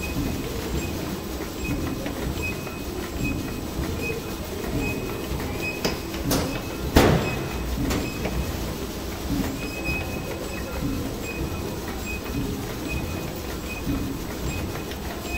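Automatic sugar cube forming machine and its mesh conveyor running, with a steady mechanical clatter that repeats in an even cycle. Two sharp clicks sound about six and seven seconds in, the second the loudest.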